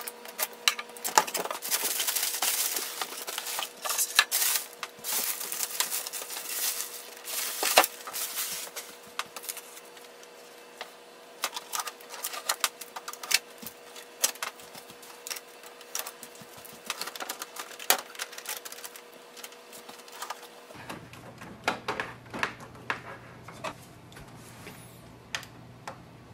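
Unpacking a printer: a box cutter slitting the packing tape on the cardboard carton, followed by an irregular run of rustles, scrapes, clicks and knocks as the cardboard and plastic packaging are handled.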